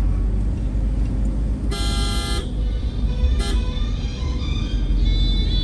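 Car driving on a paved road, its engine and road noise a steady low rumble; a car horn sounds once for under a second about two seconds in, then gives a short toot about a second later.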